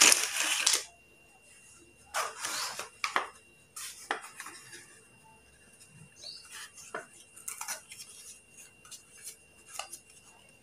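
Slate pencils clattering as they are poured from a cardboard box onto a heap of slate pencils on a paper plate. There is a burst at the start and another about two seconds in, then a shorter one, followed by scattered light clicks as the pencils are handled.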